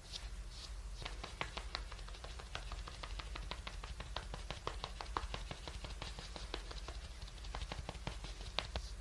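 Makeup sponge patting against the cheek in a fast run of soft, sharp taps, several a second, blending freshly applied concealer into the skin. The tapping starts about a second in and runs on until near the end.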